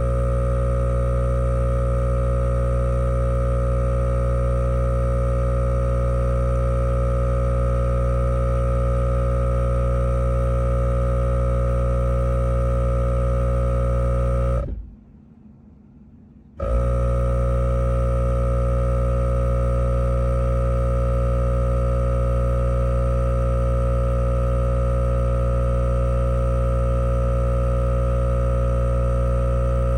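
Rivian air compressor running with a steady droning hum while reinflating a tyre. It cuts out about halfway through, stays off for around two seconds, then starts again and runs on unchanged.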